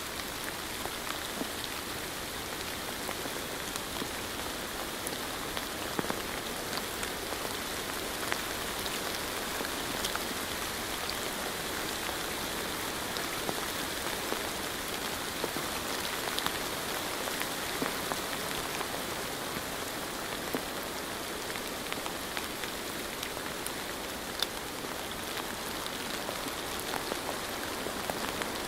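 Steady rain falling, an even hiss with many individual drops ticking sharply through it.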